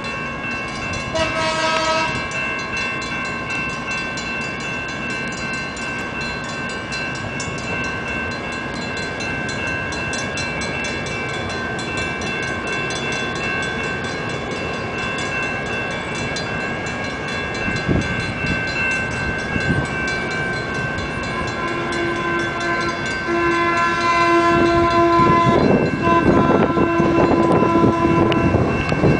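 San Diego Trolley light-rail cars running on street track with a steady whine, wheels clicking a few times over rail joints. A short warning tone sounds about a second in, and near the end, as a train comes closer and louder, a run of short warning tones sounds.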